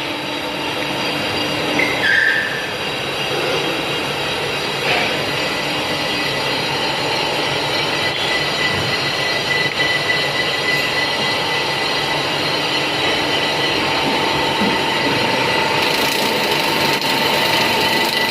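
CNC turning lathe running: a steady mechanical noise with faint steady whines and a short high squeal about two seconds in.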